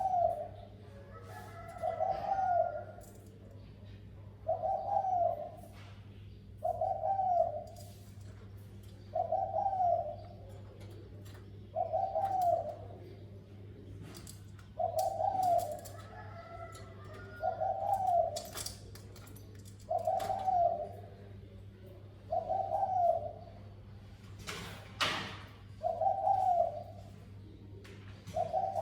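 Spotted dove cooing in the deep 'thổ sấm' voice prized by Vietnamese dove keepers: the same short coo phrase repeats about every two seconds. Under it runs a steady low hum, with a few scattered clicks, one louder about 25 seconds in.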